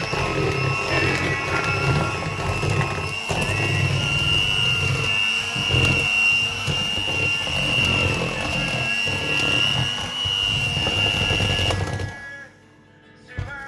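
Electric hand mixer running steadily, its beaters churning butter-cake batter, with a high whine over a low motor hum. It switches off near the end.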